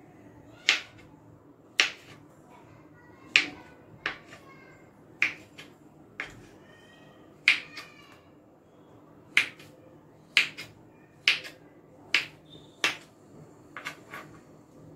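Kitchen knife chopping peeled papaya on a wooden cutting board: a dozen or so sharp knocks of the blade striking the board, roughly one a second and unevenly spaced.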